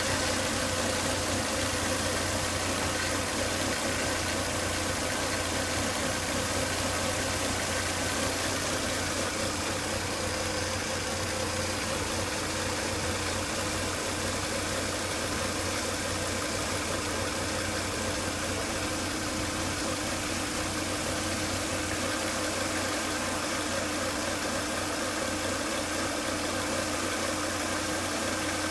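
Volvo S80 2.5T turbocharged five-cylinder engine idling steadily with a whine. The whine comes with excessive crankcase vacuum, a fault cured by replacing the crankcase breather box.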